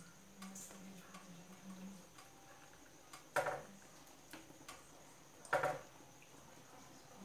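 Metal spoon scraping and clinking in a frying pan of sausages in sauce as filling is scooped out, with two louder scrapes about two seconds apart and faint light ticks in between.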